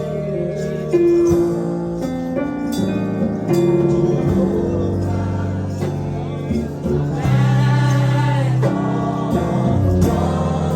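Gospel worship music: long held instrumental chords with a voice singing over them.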